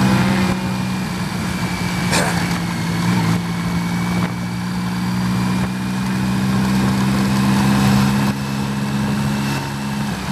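1988 BMW K75's three-cylinder engine running steadily at low speed, with one sharp click about two seconds in.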